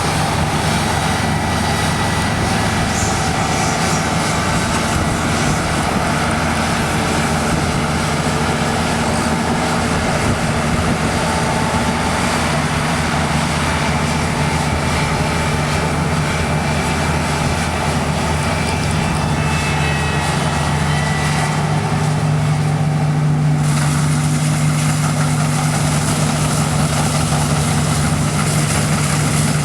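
New Holland CX8070 combine harvester running steadily while harvesting, a continuous engine drone with a low hum under a broad mechanical hiss. About three quarters of the way in, the hiss lessens and the engine's low hum comes forward.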